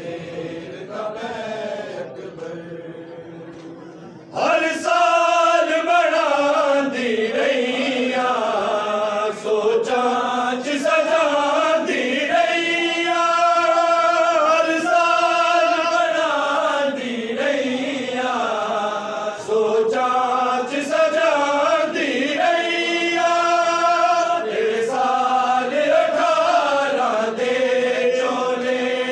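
Punjabi noha, a Shia mourning elegy, chanted unaccompanied by a man's voice with other men's voices joining in. It becomes much louder about four seconds in.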